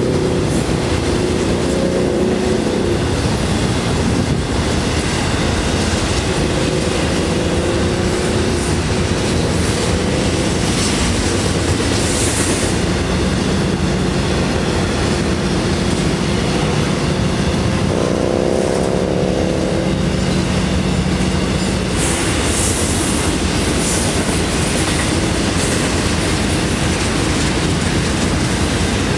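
Freight train of container and trailer well cars rolling past, a steady loud rumble with wheels clacking over the rail joints. Brief high squeals come about twelve seconds in and again a little after twenty seconds.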